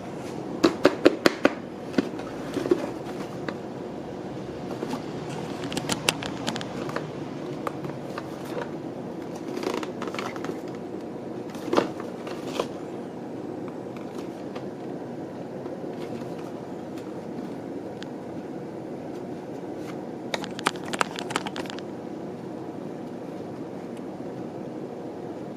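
Clicks and scrapes of a cardboard kit box being handled and tapped, in several short clusters, over a steady low hum.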